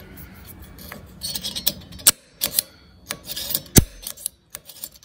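Automatic center punch pressed onto the head of a solid aluminium rivet, resetting its centre mark before the rivet is drilled out. It gives a series of sharp clicks and short scrapes of the tip on the metal, starting about a second in, the loudest about two seconds in and near the end.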